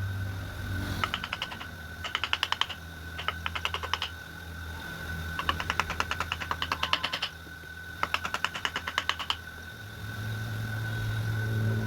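Rapid tapping clicks, about a dozen a second, in five short bursts of one to two seconds each, over a steady high-pitched hum.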